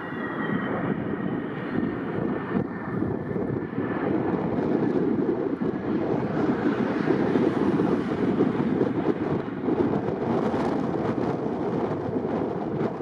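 Airbus A320neo jet airliner with CFM LEAP-1A turbofans passing low on final approach: steady jet noise, with a faint high whine that drops slightly in pitch over the first few seconds as it goes by.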